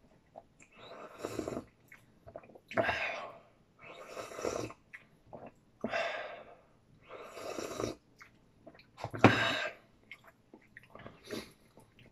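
Slurping sips from a small bowl held at the lips: about seven breathy slurps, roughly one every one and a half seconds, the loudest about nine seconds in.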